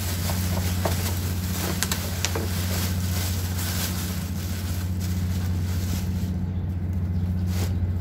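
Steady low hum of a running machine, with a few faint clicks.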